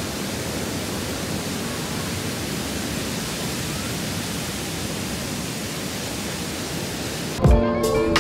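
A steady, even hiss of noise with no distinct events. About seven seconds in, music with a beat starts.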